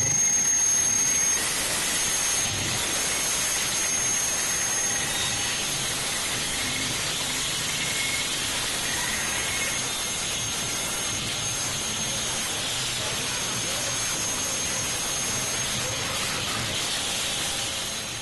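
Steady hissing noise, like static, with a faint thin high whine running through it; it stops abruptly at the end.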